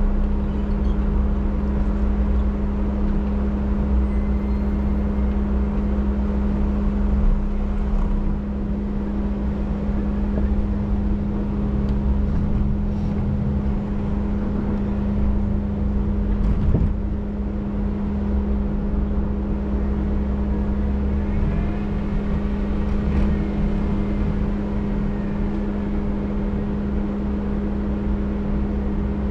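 Off-road vehicle's engine running at a steady speed with a constant low hum and rumble, plus a few short knocks and rattles as it drives over rough trail.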